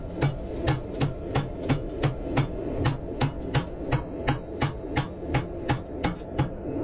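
Hammer blows on a white-hot cable Damascus billet in a 60° V swage, forge-welding the strands together, at an even three blows a second. A steady hum runs underneath the blows.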